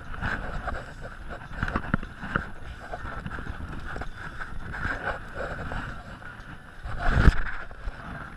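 Wind buffeting the microphone and choppy water against a boat's hull, with scattered knocks of hands and fishing gear at the gunwale, and one loud low thump about seven seconds in.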